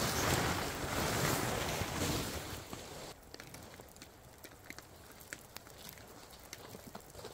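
A loud rushing noise fades out about three seconds in. After it, scattered drips of water tap irregularly on a surface.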